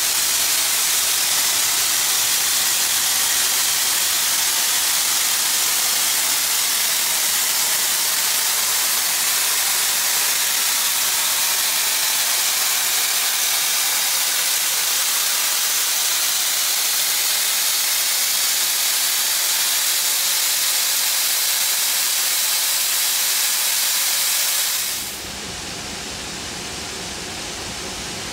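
NSW C38-class steam locomotive 3801 standing and venting steam from around its front end: a loud, steady hiss. About 25 seconds in the hiss stops abruptly and a quieter, lower steady noise takes over.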